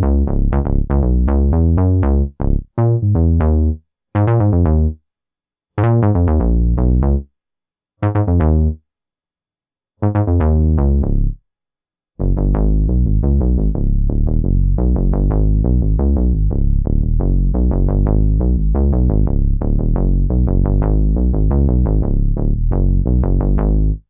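Sequential Prophet 6 analog synthesizer playing bass patches. Quick repeated bass notes open, followed by a few short phrases with silences between them, then a long run of rapid bass notes from about halfway that stops abruptly at the end.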